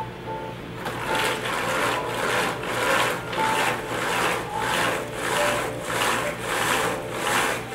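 Wooden venetian blind being let down by its pull cord: a rhythmic rasp of cord running through the head rail, about two strokes a second, starting about a second in.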